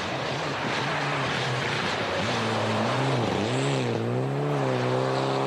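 Mitsubishi Lancer Evolution rally car driving hard on a snowy stage. Its engine note dips and rises several times around the middle, then holds steady, over a constant rushing noise.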